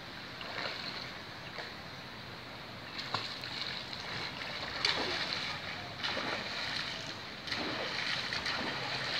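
Water splashing in a swimming pool as children swim, with irregular splashes from arm strokes and kicks over a steady wash of moving water.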